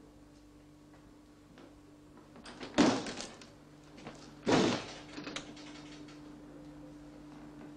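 Glazed wooden door being opened: two loud clattering bangs of the latch and rattling glass panes, about a second and a half apart, then a few light knocks. A faint steady hum runs underneath.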